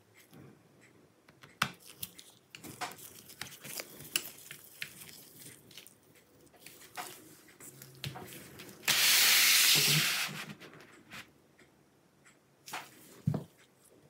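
Small clicks and taps from a precision screwdriver and gloved fingers working on a laptop's M.2 SSD and its retaining screw. About nine seconds in comes a loud rushing hiss lasting about a second and a half, then two more clicks near the end.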